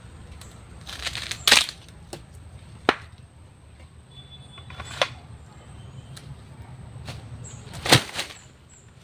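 Machete blows chopping and cracking a peeled wooden pole as it is split into strips: several sharp, separate strikes, the loudest about a second and a half in and another near the end.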